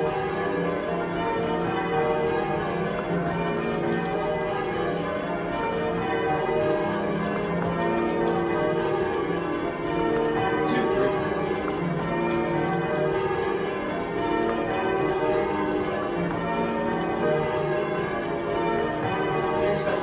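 Bells ringing together in a dense, overlapping peal, their tones sustained and blurring into one another at a steady level.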